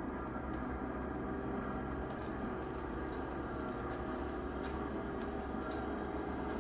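Outdoor heat pump unit running in defrost, a steady hum with several steady tones, with faint scattered ticks of meltwater dripping off the thawing coil.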